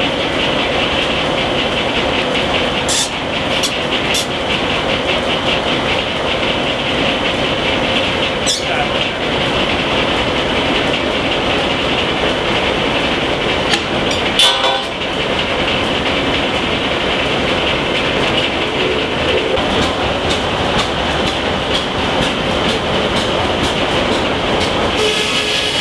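Steam-powered sawmill running: a large belt-driven circular saw and its drive machinery make a steady, loud mechanical din, with a few sharp knocks.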